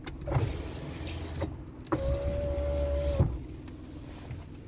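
Vauxhall Corsa D's electric window motor running for just over a second, a steady whine that starts and stops abruptly, over the low rumble of the car's 1.0 three-cylinder A10XEP engine. A few light knocks come before it.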